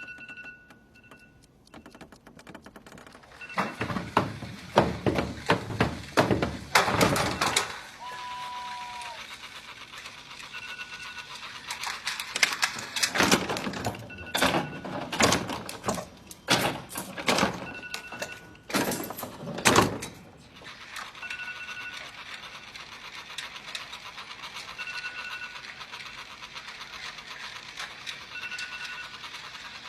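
iPhone alarm going off in short, high beeping bursts that repeat every three to four seconds. Over it come two long stretches of loud thuds and knocks.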